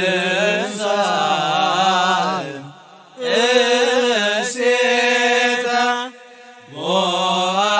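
Slow Ethiopian Orthodox chant in Ge'ez, sung with long, drawn-out wavering notes. It runs as three held phrases split by short pauses.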